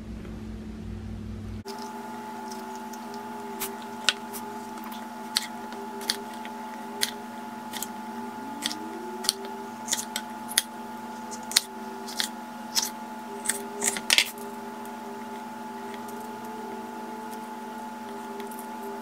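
Kitchen knife slicing sweet peppers on a wooden cutting board: a run of sharp taps, about one or two a second, that stops about fourteen seconds in. A steady hum runs underneath.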